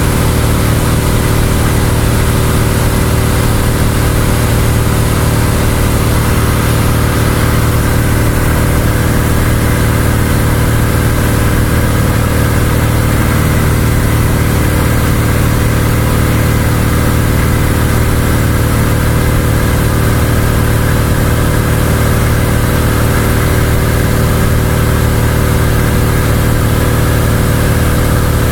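Cessna 172's piston engine and propeller drone at steady power in flight, heard from inside the cabin: one even, unchanging hum.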